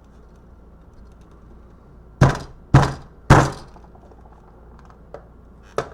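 A hammer striking a blood pressure monitor's case to break it open: three loud thunks about half a second apart, then a lighter knock and a sharper click near the end.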